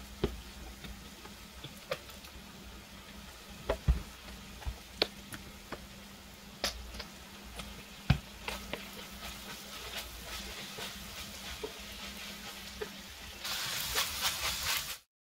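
Ground beef frying in a skillet, with scattered knocks and clacks as bottles and utensils are handled on a wooden counter. Near the end comes a louder stretch of scraping and sizzling as the beef is stirred with a wooden spoon, and it cuts off suddenly.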